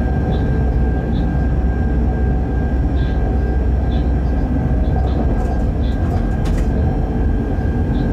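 Freight train running at speed, heard from the locomotive cab: a steady heavy rumble with a constant high whine over it. A brief cluster of sharp clicks comes about six and a half seconds in.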